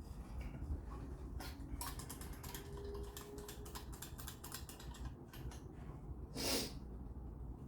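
New paint spray gun being flushed with paint thinner, its trigger squeezed to run the thinner out: a quick run of light clicks and ticks, then one short hiss about six and a half seconds in.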